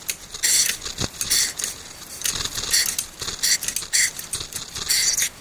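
A jack being pumped to lift the rear suspension knuckle, a short rasping sound with each stroke at about two strokes a second, with a few sharp clicks.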